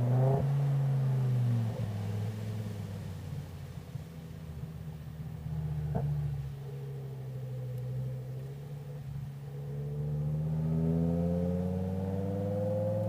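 BMW M5 E60's V10 engine and exhaust, heard from the boot. The engine note holds steady, then drops about two seconds in as the throttle closes, and stays low through the middle. In the last few seconds the revs climb steadily under acceleration. A single sharp click about halfway through.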